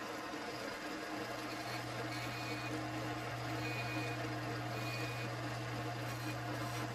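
Bench-top combination belt and disc sander running steadily, its motor giving a constant low hum under an even whir.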